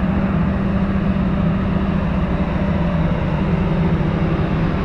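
Gasoline generator engine running steadily with an unchanging hum.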